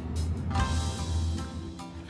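Music with a steady beat and deep bass, with a burst of hiss about half a second in.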